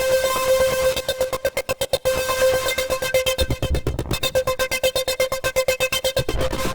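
Waldorf Iridium synthesizer playing a preset: a fast, rhythmically pulsing electronic pattern over a steady held note, with deep bass coming in about three and a half seconds in.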